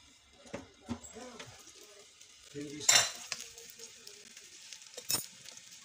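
Toaster oven door clanks open about three seconds in with one sharp metallic knock. Grilling chicken pieces then sizzle steadily in their hot juices on the oven tray, with a couple of light metal clicks.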